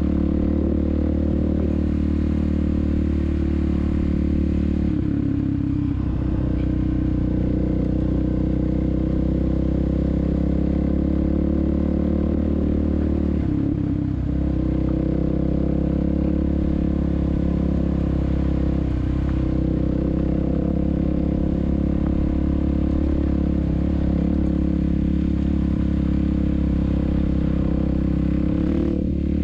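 2016 Suzuki DRZ400SM's single-cylinder four-stroke engine running at a steady cruise, with brief dips in the engine note about five, fourteen and nineteen seconds in.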